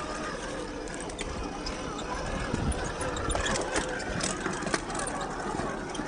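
Axial SCX10 II rock crawler's brushed 550 motor and geared drivetrain whining steadily as it crawls, with a flurry of clicks and knocks from tires and chassis on rock about halfway through.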